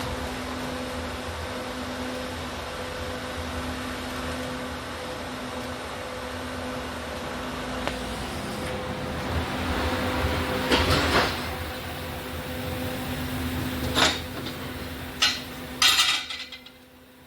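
Steady electrical hum with a hiss from welding equipment, then a few sharp metal clanks and knocks in the second half. The hiss dips away briefly near the end.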